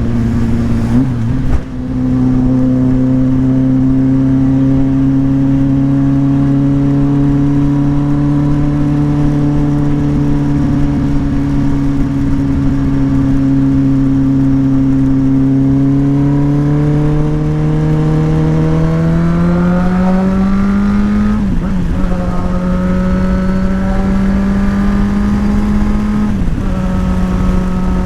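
Motorcycle engine running under way at a steady pitch, then accelerating with a rising note from about two-thirds of the way in, with two quick gear changes where the note briefly drops; steady wind rush throughout.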